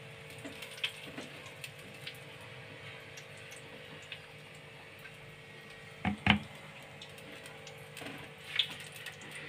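Faint clicks and light knocks of a clear grinder jar being handled and set down on a marble counter, over a steady faint hum, with a louder double knock about six seconds in and another shortly before the end.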